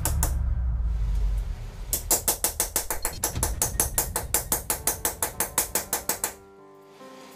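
Background music: a fast, even percussive beat of about six clicks a second over a bass line, pausing briefly early on, then giving way to plucked guitar notes about six seconds in.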